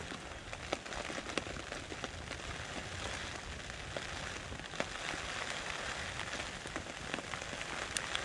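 Rain falling on the fabric roof of a pop-up hunting ground blind, heard from inside: a steady hiss with many separate drop ticks scattered through it.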